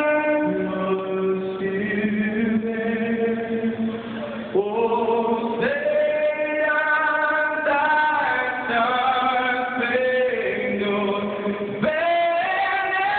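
A solo male singer holds long, sustained notes through the arena's amplified sound system, changing pitch every second or two, as in a slow anthem.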